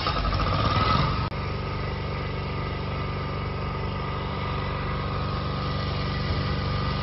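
A steady engine hum, even in pitch, as of an engine idling. A rougher, noisier sound in the first second gives way abruptly to the steady hum about a second in.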